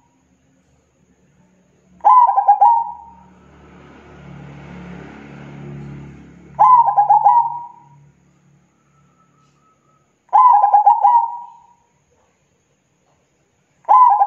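Zebra dove (perkutut) cooing: three calls, each a quick stutter of short notes ending in a held note, about four seconds apart, with a fourth starting at the end. A faint low rumble runs between the first and second calls.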